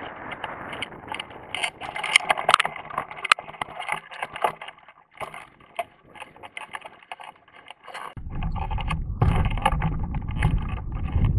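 Hang glider landing, heard from a camera on its control bar: rushing air, then a run of knocks, rattles and scrapes as the bar and its frame meet the grass and the glider settles. About eight seconds in, heavy wind buffeting on the microphone starts suddenly and keeps going.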